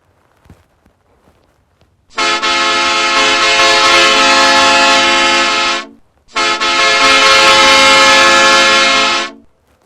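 Two long blasts of an air horn sound effect, each about three and a half seconds, steady in pitch and starting and stopping abruptly, with a short gap between them.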